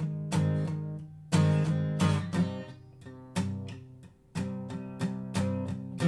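Background music of acoustic guitar strumming chords, with a brief pause about four seconds in.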